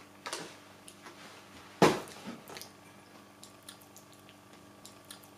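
A person chewing a small piece of snack food: soft wet mouth clicks and squelches, with one louder sharp click about two seconds in.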